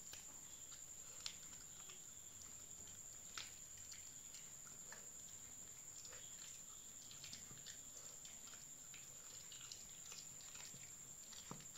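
A Pomeranian chewing long beans: faint, scattered crunches and clicks, over a steady high-pitched whine.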